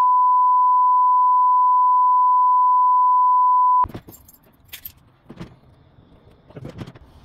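A loud, steady single-pitch beep dubbed over speech as a censor bleep, cutting off abruptly just under four seconds in. Faint clicks and knocks follow as a shower cubicle door is handled.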